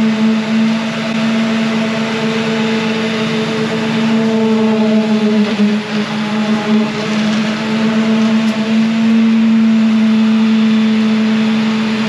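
Concrete mixer running steadily with a constant, even engine hum; the pitch dips briefly about halfway through.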